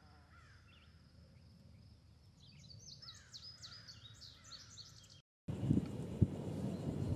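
Faint birdsong: repeated short chirps over quiet outdoor background, growing busier about halfway through. After a brief cut just past five seconds, a louder steady rushing noise with low thumps takes over.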